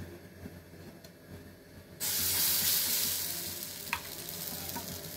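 Thick adai batter with chopped banana flower put onto a hot dosa tawa starts sizzling about two seconds in: a sudden hiss that slowly fades, with one light click partway through.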